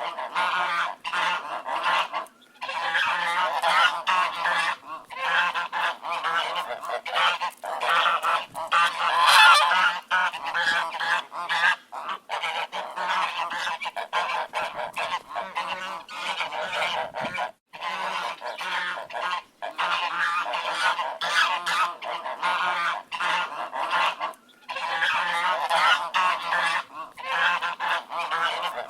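A flock of ducks quacking nonstop, many calls overlapping, with a few brief sudden breaks in the sound.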